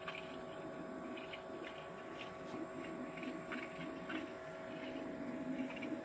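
Bodega 12 V dual-zone fridge/freezer's compressor running on its first start-up: a steady whirring hum with refrigerant gurgling like water and scattered little clinks. The owner takes the noises for a first run and later traces the odd noise to the fridge not sitting level.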